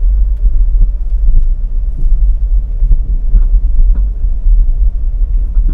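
Car driving along a road: a loud, steady low rumble of road and engine noise.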